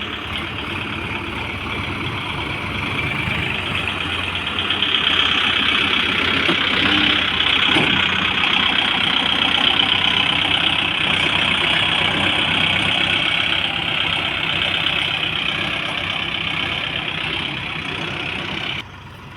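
Tractor engine running steadily, growing louder about five seconds in; the sound drops sharply just before the end.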